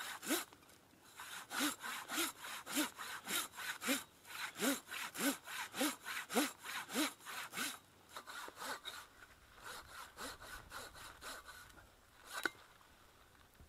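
Hand saw cutting through wood in steady strokes, about two a second. After about eight seconds the strokes turn lighter and quicker, then stop, with one sharp knock near the end.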